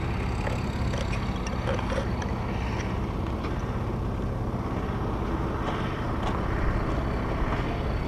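Steady low rumble of wind on the camera microphone, mixed with a lorry's diesel engine running as it moves slowly along the dirt track.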